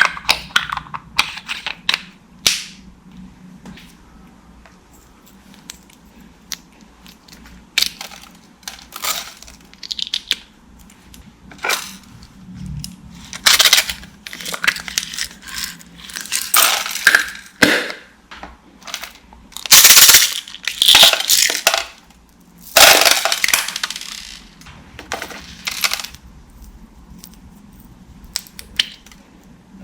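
Slime being mixed: irregular wet clicks, pops and squelching bursts, the loudest about two-thirds of the way through.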